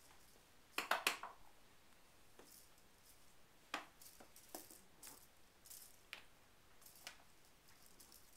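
Sparse short clicks: a cluster of three loud ones about a second in, then single fainter clicks about once a second.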